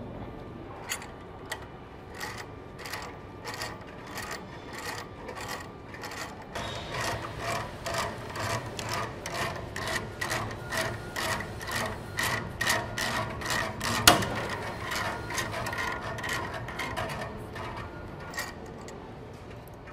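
Wrench turning the adjusting nut down the threaded rod of a conveyor belt cleaner's spring tensioner, compressing the coil spring to raise the secondary cleaner blades against the belt. It gives a run of ringing metal clicks, sparse at first, then about three a second, with one sharp clank about two-thirds of the way through.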